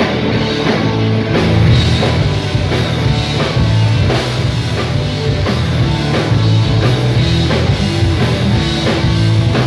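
Rock band playing live, with drum kit, guitar and bass together in a steady beat.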